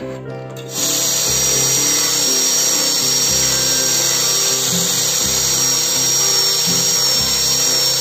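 Electric drill fitted with a sanding disc running steadily at high speed, sanding the edge of a thin PVC pipe ring, with a high whine. It starts about a second in and stops at the end, over background music.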